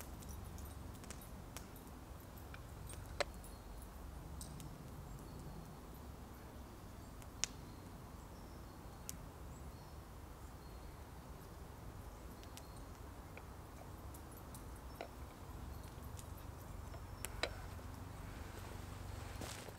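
Glass French press (cafetière) being plunged slowly: mostly quiet, with a few sharp light clicks from its metal lid and plunger rod scattered through, over a low steady rumble.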